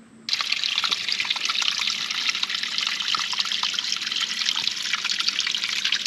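Small stream of water splashing and trickling over rocks, setting in abruptly just after the start and then running steadily.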